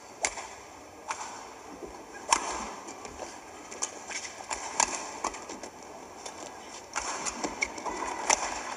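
A badminton rally: sharp racket strikes on a feather shuttlecock, traded back and forth about once a second or so, over the steady noise of the hall and crowd.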